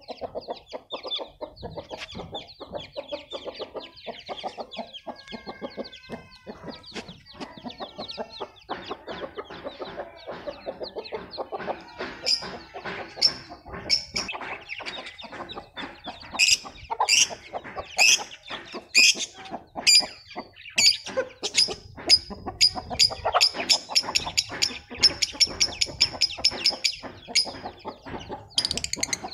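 A hen clucking while her chicks peep, a steady run of many short calls; from about halfway through the peeping becomes louder, sharper and higher.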